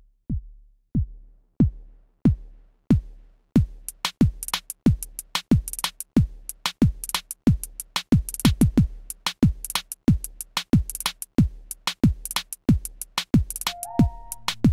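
Electronic music track: a steady drum-machine kick beat, joined by hi-hats about four seconds in, with a synth line coming in near the end.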